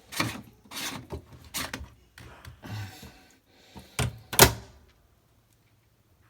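Plastic clicks and knocks as the drain filter is fitted back into a Miele washing machine, with one loud thunk about four and a half seconds in.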